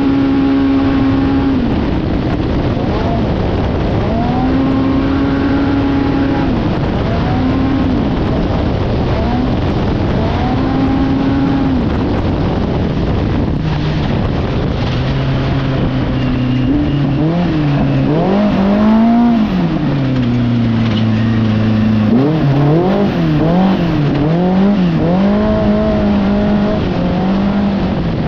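Polaris Pro R UTV's four-cylinder engine heard onboard at race speed, revving up and falling off again and again as the throttle is worked, over steady wind and terrain noise. In the second half the engine runs lower, with quick up-and-down swings in revs.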